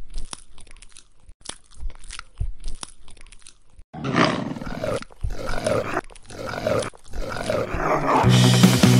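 A run of sharp crunches, then about four rough, monster-like growls about a second apart. Music with guitar comes in near the end.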